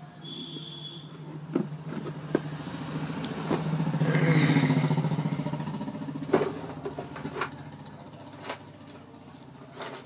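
A motor vehicle's engine passing by, swelling to a peak about halfway and fading, its pitch dropping as it passes, over a steady low hum. Several sharp knocks and clicks come from the amplifier board on its wooden base being pushed into the metal cabinet.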